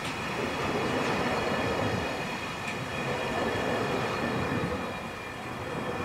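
Tail end of a freight train rolling past, its wagon wheels running over the rails with a steady rumble, a faint high ring and a few light clicks, as the last wagon clears.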